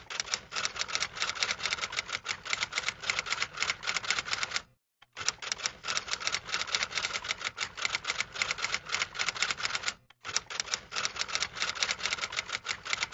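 Typewriter keys clacking rapidly in three runs, breaking off briefly about five seconds in and again about ten seconds in.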